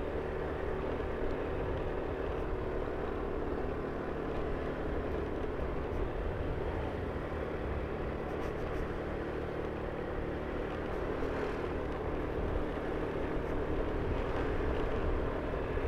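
Engine of the vehicle carrying the recorder running steadily while climbing a long uphill road, over a steady hum of road noise. It grows slightly louder near the end.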